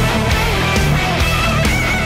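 Loud background rock music with guitar and a steady beat, with a wavering lead line above.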